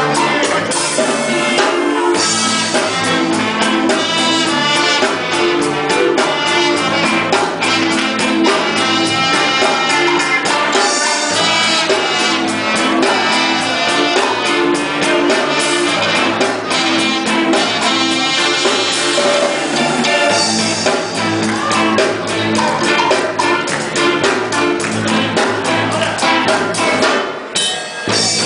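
Band music with a drum kit and brass, playing a steady beat, with a brief drop in level near the end.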